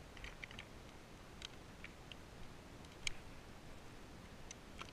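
Quiet background with a few faint, scattered clicks, one sharper click about three seconds in.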